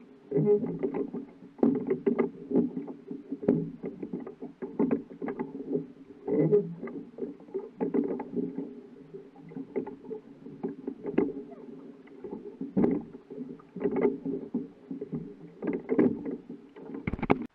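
A small boat underway on the water, with a steady low rumble and many irregular knocks and slaps; it cuts off abruptly near the end.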